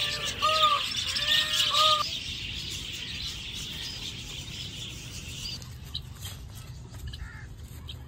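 A flock of budgerigars chattering with dense, high chirping that fades out after about five seconds. During the first two seconds another bird's short arched call repeats about twice a second.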